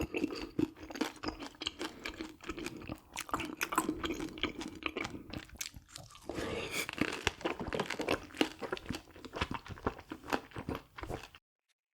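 A person chewing and crunching food close to the microphone, with many quick crisp clicks and wet mouth sounds; the sound cuts off abruptly near the end.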